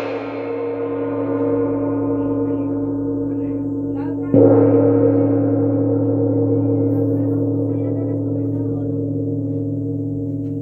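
A 55 cm (21.5-inch) wind gong rings with many tones at once. The ring of the previous stroke swells slightly at first. A second mallet strike about four seconds in sets it ringing loudly again, and the ring then fades slowly.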